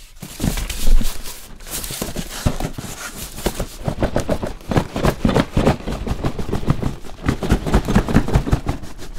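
Cardboard box being opened and its packaging handled: a quick run of small clicks, scrapes and knocks, with a louder knock about a second in.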